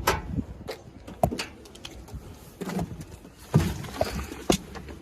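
Scattered knocks, clicks and rustling at irregular moments as a person climbs into an auto-rickshaw and settles in.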